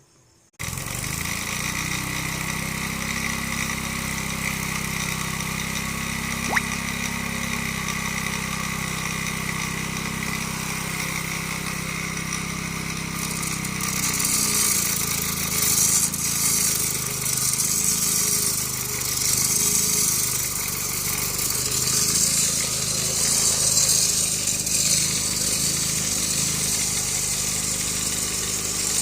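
The small engine of a rail cutting machine running steadily, with a steady whine above its low hum. About halfway through, a loud, pulsing high hiss joins it.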